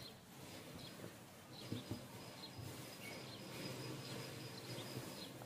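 Faint rustling and brushing of cotton dress fabric and its lining being spread and handled on a cutting table, with a few light ticks about two seconds in, over a thin steady high-pitched whine.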